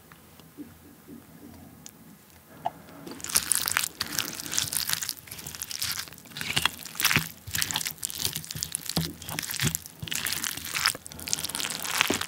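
Wooden spoon stirring and mashing cooked rice with seasoned cockle sauce in a ceramic bowl, close to the microphone. The wet, sticky squishing and the spoon scraping the bowl start about three seconds in and go on in uneven bursts.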